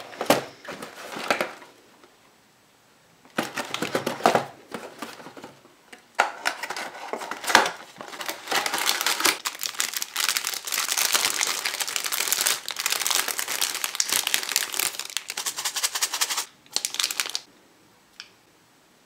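Crinkly plastic packaging being handled and unwrapped, in a few short bursts and then a long stretch of continuous crinkling and rustling that stops suddenly about three quarters of the way through, followed by a single small click.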